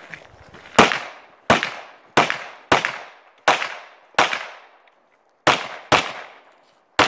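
Nine pistol shots from a 9 mm STI DVC Open competition pistol, fired singly about two thirds of a second apart with one longer pause partway through. Each shot rings off in a short echo.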